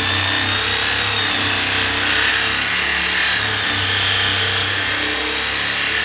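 A power tool running steadily against a workpiece, a harsh rasping noise with a thin high whine on top, typical of abrasive cleanup work on a steel frame.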